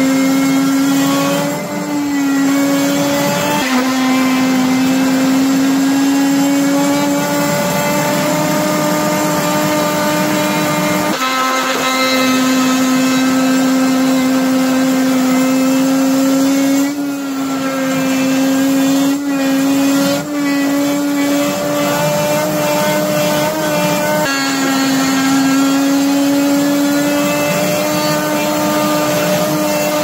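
Worx Sonicrafter cordless oscillating multitool cutting into a chipboard strip with a plunge-cut blade: a steady high buzz whose pitch sags and recovers several times as the blade bites and is eased back.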